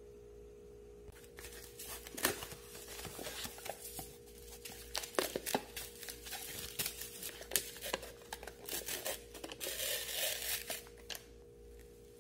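Packaging of a Maruchan Instant Lunch ramen cup being torn open and handled: paper and plastic wrapping tearing and crinkling in a scatter of small crackles, with a denser rustle about ten seconds in.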